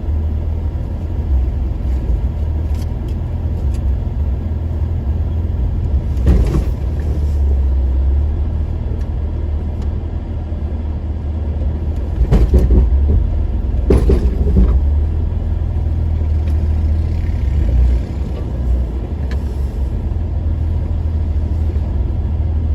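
An off-road vehicle's engine running with a steady low rumble as it crawls down off a large rock, with three short thumps, one about six seconds in and two close together around twelve to fourteen seconds in.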